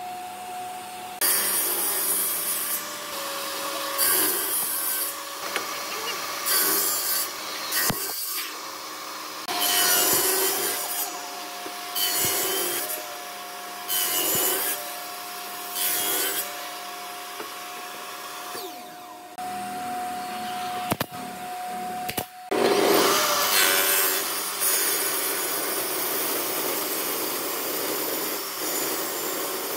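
Table saw blade running with a steady whine and biting into old railway-sleeper wood: a series of short cuts, then one long continuous rip cut from about two-thirds of the way through.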